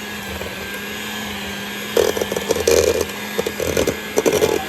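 Electric mixer running on its lowest speed, shredding cooked chicken thighs in a bowl: a steady motor hum, with uneven rattling from the beaters and meat starting about halfway through.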